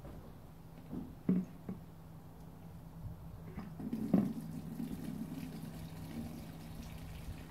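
Homemade water ram pump worked by hand: a few irregular knocks from its valve, the loudest about four seconds in, then water splashing into the tub below. The pump is not cycling on its own.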